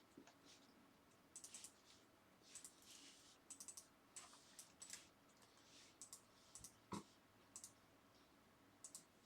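Faint, scattered light clicks and taps in small clusters, with one duller knock about seven seconds in.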